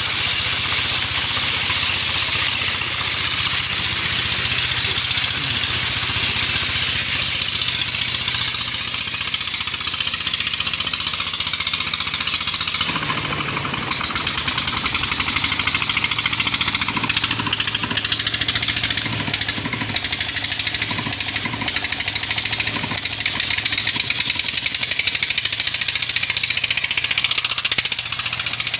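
Dompeng single-cylinder diesel engine running steadily with a hard, rapid knocking beat as it drives a sand suction pump. A little under halfway through, the sound shifts and takes on more low rumble.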